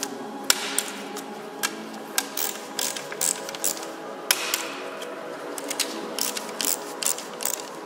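Sharp metallic clicks and taps, unevenly spaced, from a socket wrench on an extension being worked on the bolts of an Audi S-tronic gearbox's aluminium housing.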